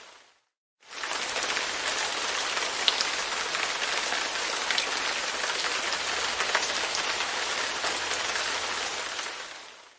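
Light rain falling on a window pane: a steady hiss with scattered sharp drop ticks. It swells in from a brief silence about a second in and fades away near the end.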